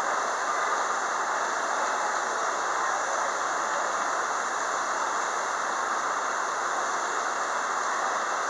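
Steady hiss of heavy rain with the constant running of an idling Metra MP36 diesel locomotive mixed in, unchanging throughout.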